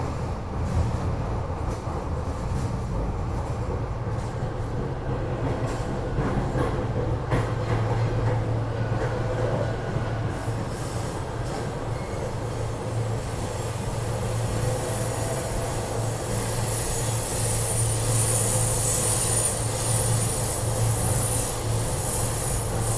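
SEPTA Regional Rail passenger car running on the line, heard from inside: a steady rumble of the car and its wheels on the rails. A low hum strengthens about a third of the way in, and a high hissing rail noise builds through the second half.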